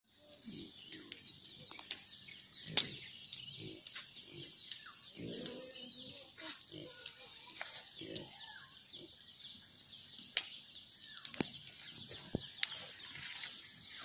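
Chickens clucking over a dense, continuous chorus of high bird chirping, with scattered sharp clicks, the loudest a little under three seconds in.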